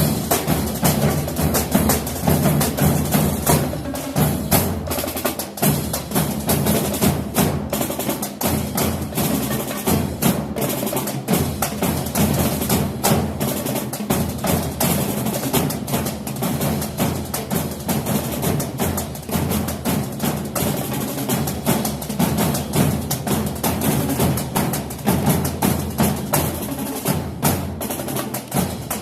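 Music built on a dense, fast run of dry clicking percussion, like wood blocks or typewriter keys, over steady low bass tones.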